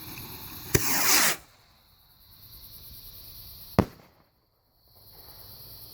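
Red Rhino Strobe Warfare firework rocket going off: a sharp pop under a second in, then a loud rushing hiss that cuts off suddenly, and a single sharp bang near four seconds in.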